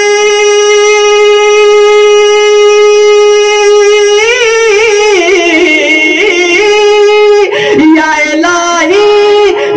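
A man singing an Urdu naat into a microphone. He holds one long steady note for about four seconds, then breaks into a wavering run of ornaments that winds downward in pitch.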